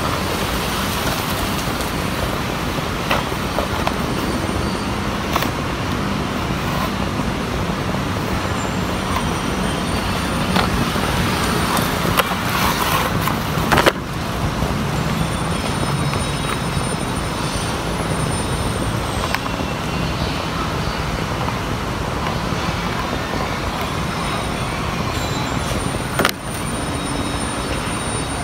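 Steady noise of road traffic, with scattered clicks and rustles as a toy helicopter's cardboard box and plastic packaging are opened and handled; the sharpest snap comes about fourteen seconds in.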